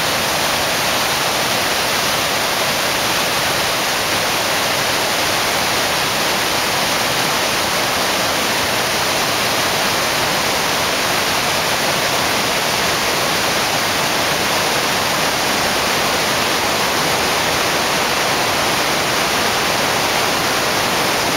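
Potomac River rapids at Great Falls: a loud, steady rush of white water pouring over rocks.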